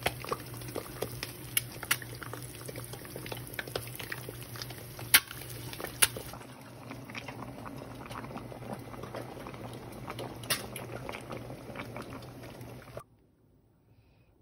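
Two eggs frying in oil in a nonstick pan, sizzling with sharp crackles and pops; about six seconds in it gives way to a pot of spicy braised chicken stew bubbling. The sound stops abruptly about a second before the end.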